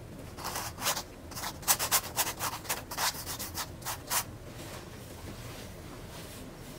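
Paintbrush scrubbing paint onto a stretched canvas: about a dozen quick scratchy strokes that stop about four seconds in.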